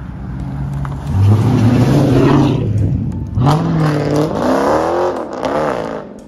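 Dodge Challenger driving past with its engine accelerating: a steady low note, then revving that rises and falls several times in the second half.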